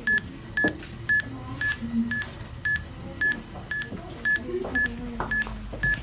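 Ghost-hunting EMF meter app on a Samsung phone beeping steadily, one short high beep about twice a second.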